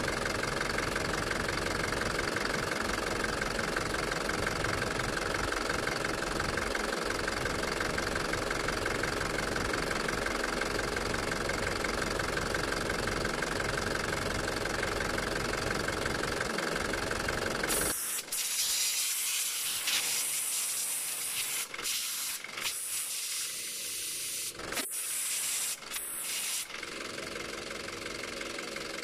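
Isuzu pickup's engine idling steadily under the hood, turning the cooling fan on its newly fitted fan clutch during a test run for overheating. About 18 seconds in the engine sound cuts off abruptly and a steady hiss with scattered clicks takes over.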